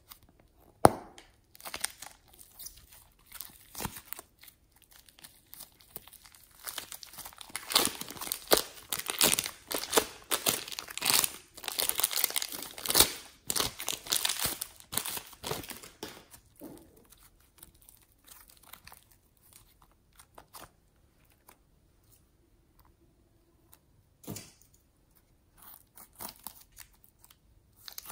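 Plastic piping bag filled with slime crinkling and crackling as hands squeeze and knead it. The crinkling is busiest through the middle and turns sparse and quieter toward the end.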